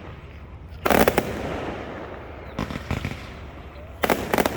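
Fireworks bursting in the air: a loud group of sharp bangs about a second in, a few weaker reports around the middle, and a rapid string of crackling cracks near the end, all over a low rolling rumble.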